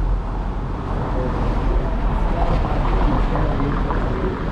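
City street ambience: a steady low rumble of passing traffic with faint, scattered voices of people nearby.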